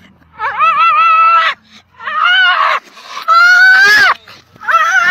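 Husky-type dog yowling in four drawn-out, wavering, high-pitched cries, each up to about a second long with short gaps between them: agitated, protesting vocalising.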